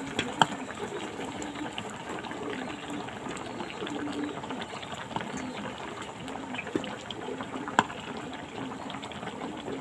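Fish-and-vegetable curry boiling vigorously in a pan: a steady bubbling with scattered sharp pops, two of them louder than the rest.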